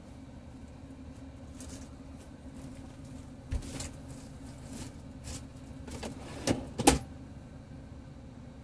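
Truck engine idling steadily with a constant hum, left running to keep the cab air conditioning on. A few sharp knocks and clicks come between about three and a half and seven seconds in, the loudest near the end of that stretch.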